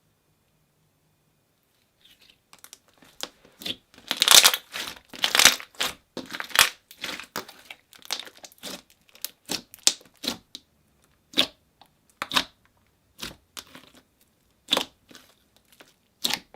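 Slime being squished and stretched by hand, making irregular crackling pops and squelches that start about two seconds in.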